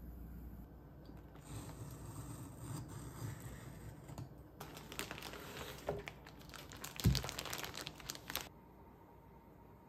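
Plastic wrapping being slit and peeled off a cardboard box, then a plastic bag crinkling loudly for a few seconds as it is handled, with a dull thump about seven seconds in.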